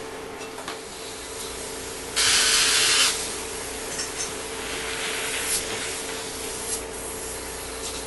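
Dental surgery sounds: a steady low equipment hum, with a burst of hissing air lasting about a second, a little over two seconds in, and a few faint instrument ticks.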